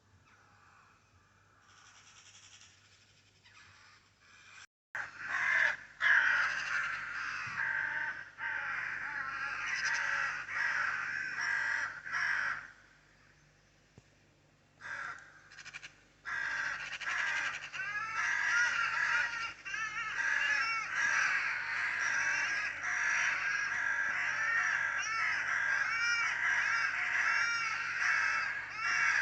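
Birds calling harshly: many short crow-like caws and chattering calls overlapping, starting about five seconds in, breaking off for a few seconds in the middle, then running on densely.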